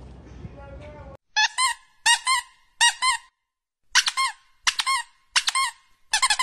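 A string of short, high-pitched squeaky honks in pairs and threes, each rising and falling in pitch, with silence between them. Near the end they quicken into a fast, unbroken run.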